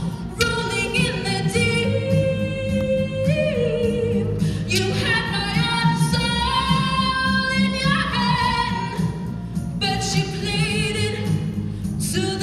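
A woman singing solo into a handheld microphone over musical accompaniment with a steady low bass. She sings phrases of long held notes with a wavering vibrato.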